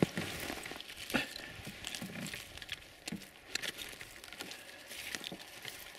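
Handling noise: rustling of a winter jacket's fabric with scattered light clicks and knocks as the camera is moved about. One sharper knock comes about a second in.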